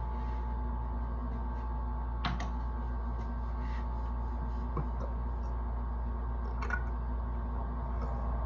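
Steady low electrical hum with a few faint, short clicks spread through it.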